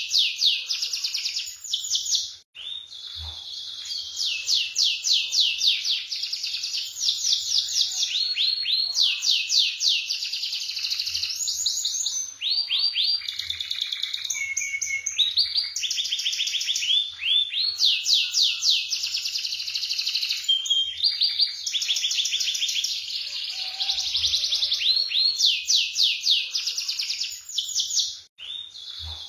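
Canary singing a long, continuous song of fast rolling trills: trains of rapidly repeated high notes that shift in pitch and speed from one phrase to the next, with brief breaks about two seconds in and near the end.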